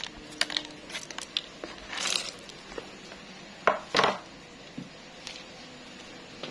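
Crisp fried melinjo-skin chips clattering and rattling as a plastic spatula scrapes them from a container into a plastic jar, with two sharper knocks of plastic on plastic a little past the middle.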